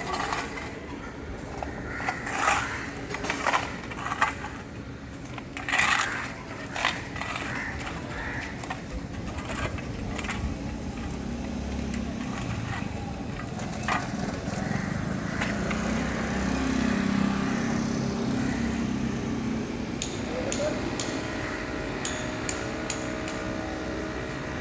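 Construction-site work sounds: scattered knocks and scrapes of tools on concrete over a steady engine hum, with quick metallic clinks near the end and voices in the background.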